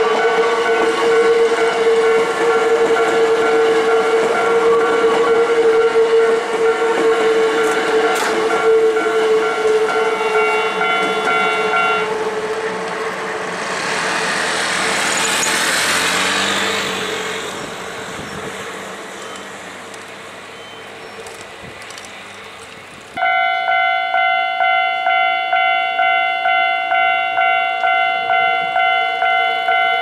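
Japanese level-crossing warning bell clanging as a Hankyu electric train runs past over the crossing on a sharp curve, with a steady high squeal from its wheels. The bell stops about 12 seconds in and the rush of the passing train fades. About 23 seconds in, the crossing bell starts again suddenly, pulsing about twice a second, for the next train.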